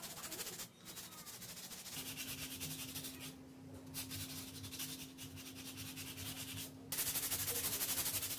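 Cloth wiping and rubbing over the glossy painted surface of a concrete sculpture, a steady scratchy hiss that breaks off briefly twice and gets louder near the end. A low steady hum joins about two seconds in.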